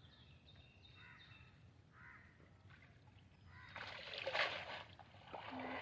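Water splashing and sloshing about two-thirds of the way in, loud for a moment, as people work in a flooded field. Before it, a few short crow caws.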